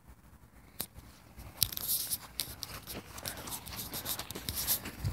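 Irregular rustling and crackling clicks from a phone being carried and handled outdoors, quiet for about the first second and a half and then busier.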